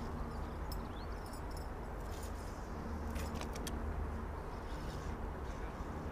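Faint outdoor background: a steady low rumble, with a few light ticks and clicks and a short rising whistle about a second in.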